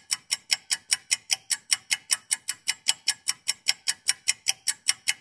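Clock-style ticking sound effect, fast and even at about six ticks a second, counting down the pupils' thinking time.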